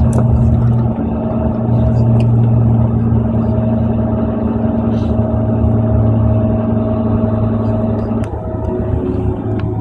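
Cabin noise of a Boeing 767-400ER taxiing, its jet engines at idle: a steady low rumble with humming tones. One of the hums cuts out about eight seconds in.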